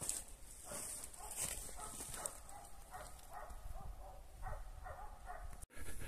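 Hunting dogs barking faintly, a string of short barks.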